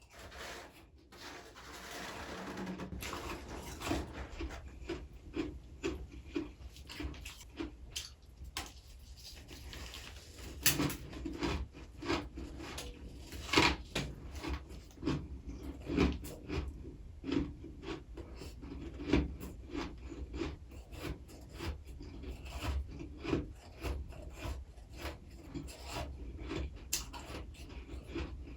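Freezer frost being chewed close to the microphone: crisp, gritty crunching in repeated bites. A softer rasp runs for the first few seconds, then sharp crunches follow every half second to a second.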